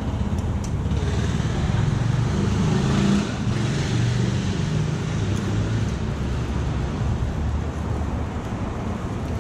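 Road traffic: a motor vehicle passing close by, its low engine rumble and hiss swelling to the loudest point about three seconds in, over a steady low traffic rumble.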